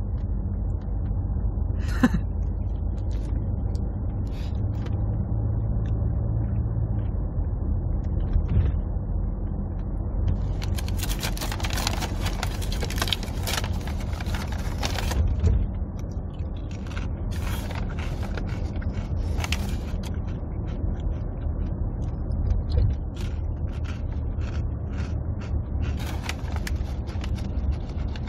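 Steady low road rumble inside a moving car's cabin, with scattered rustling and clicks, densest from about eleven to sixteen seconds in.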